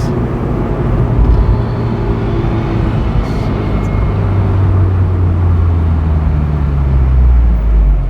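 Honda S2000's 2.2-litre four-cylinder F22C1 engine pulling steadily while driving, its low drone growing louder and easing slightly in pitch before falling away suddenly at the very end.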